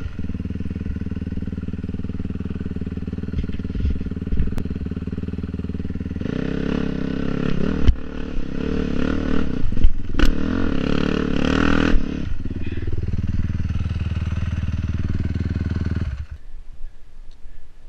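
Honda dirt bike engine running, revving harder through the middle with a couple of sharp knocks, then settling and cutting out suddenly near the end as the bike stalls on a steep bank.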